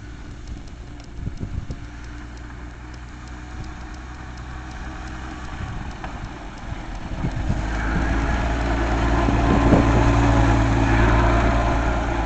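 1932 International Harvester A5 truck's engine running as the truck drives across grass, a steady low note that grows louder from about seven seconds in as it comes close.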